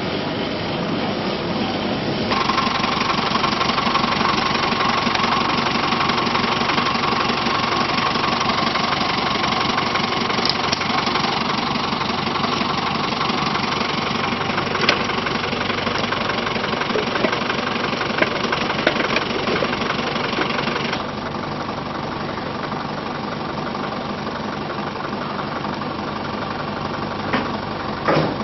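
Engine and road noise of a moving vehicle, steady throughout. A steady whine joins it about two seconds in and fades out about three-quarters of the way through, when the overall level drops, and a couple of sharp knocks come near the end.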